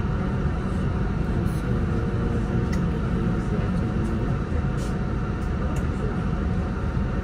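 Steady low rumble inside a city bus, its engine running, with a few faint clicks and rattles.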